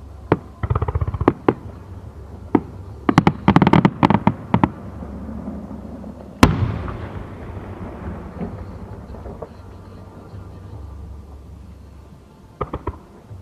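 Aerial fireworks shells bursting, heard from about 500 m away. Rapid clusters of sharp bangs and crackles come near the start and again around the 3–4 second mark. One big boom about halfway trails off in a long rolling echo, and a short burst of bangs follows near the end.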